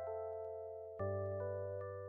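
Gentle background music: a soft melody of bell-like keyboard notes over a held bass note, with a new chord about a second in.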